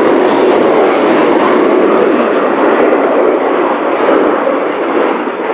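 Loud, steady roar of a Eurofighter Typhoon's twin EJ200 turbofan jet engines during a display pass, easing off a little near the end.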